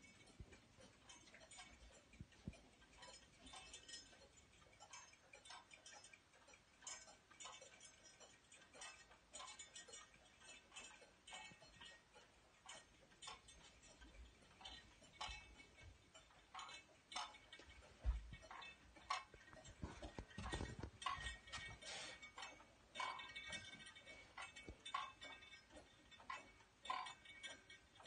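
Swinging pendulum wall clock ticking steadily, its movement and dial hanging at the bottom of the pendulum as the bob. A few low thumps come about two-thirds of the way through.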